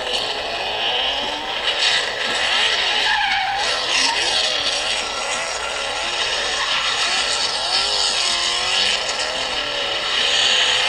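Nissan Silvia engine revving hard, its pitch swinging up and down over and over, with tyres squealing under a drift.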